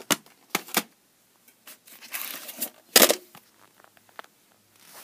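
Plastic VHS cassettes and their cases being handled: a few sharp clicks, a short rustle, then one loud plastic clack about three seconds in, followed by small ticks.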